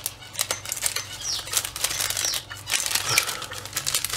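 Clear plastic kit parts in their plastic bags being handled: irregular crinkling and light clicks of plastic, with a few short high falling chirps among them.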